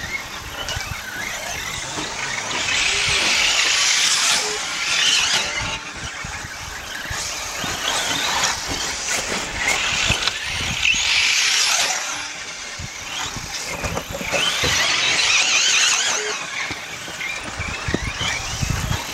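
Radio-controlled race cars running laps on a dirt track, their high-pitched motor whine swelling and fading about three times as the pack passes.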